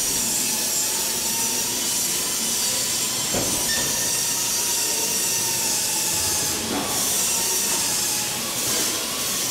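Steady rushing hiss of moving air with a faint steady tone in it, and a soft knock about three seconds in and again near seven seconds.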